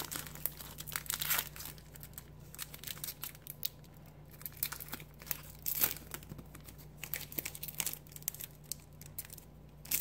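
Foil Pokémon booster pack wrapper crinkling and tearing as it is opened by hand, in short scattered crackles.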